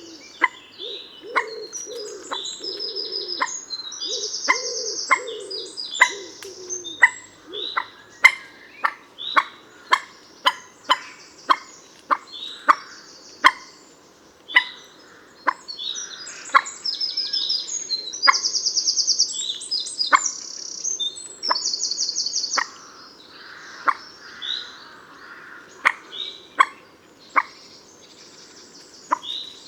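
Common moorhen giving a long series of sharp, short calls, about one and a half a second. Other birds sing high buzzy trills, strongest in the middle, and a dove coos low in the first few seconds.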